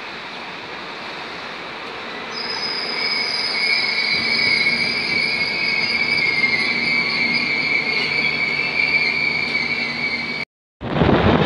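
Indian Railways LHB passenger coaches rolling slowly past, with a high, steady wheel squeal that sets in about two seconds in as the train draws into the station. Near the end the sound cuts off abruptly and is followed by a loud rush of wind on the microphone.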